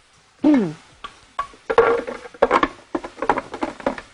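Cookware and utensils clattering: a run of knocks and clinks, with a short falling squeak about half a second in.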